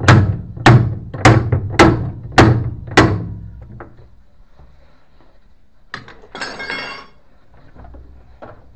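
Six heavy, hollow thunks about 0.6 s apart on a Little Swan top-loading washing machine under repair, stopping about 3 seconds in. A short metallic clinking rattle follows near the end.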